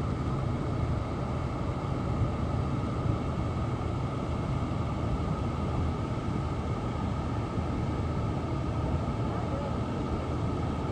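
Steady low rumble of a tour boat's motor running, mixed with the rush of the waterfall.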